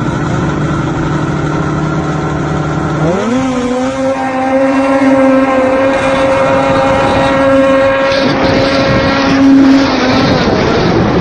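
Snowmobile engine running steadily, then revving up sharply about three seconds in and holding at high revs as the sled skims across water. A hiss of spray joins from about eight seconds in, and the engine note wavers near the end.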